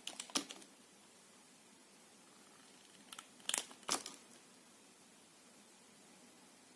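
Knife cutting soft soap: short crisp cuts, one cluster at the start and another about three and a half seconds in.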